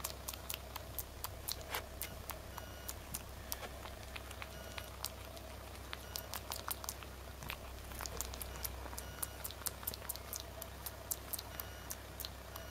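Baby monkey grooming a white-furred pet, making quick, irregular clicks and smacks as it picks through the fur with its hands and mouth.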